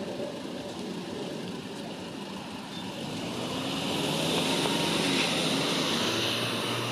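Outdoor road traffic noise, a steady hiss that swells about halfway through as a vehicle passes.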